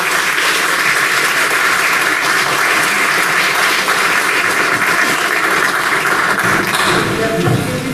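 Audience applauding: many hands clapping in a dense, even patter that thins out near the end.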